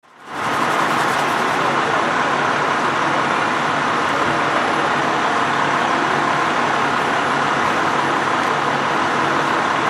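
Steady running of fire engines, an even mechanical hum and hiss that holds the same level throughout.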